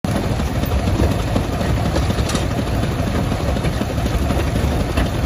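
Small tractor engine running steadily, driving a seed extractor that crushes watermelons: a dense, low, continuous machine rumble.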